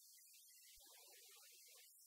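Near silence: faint room tone, with a brief, faint, indistinct sound about halfway through.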